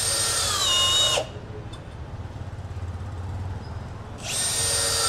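Milwaukee M18 FPD3 cordless drill driving wood screws into hard wood at top speed in drill mode, twice. Each run lasts about a second and a half. The motor's whine falls in pitch as the screw sinks in under load, then cuts off.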